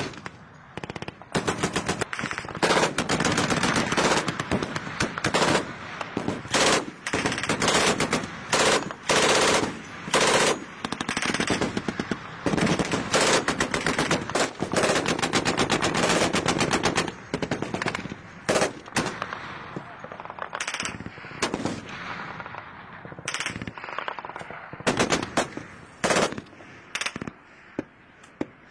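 Machine-gun fire in long, rapid bursts, almost unbroken through the first half. It then comes in shorter, more widely spaced bursts.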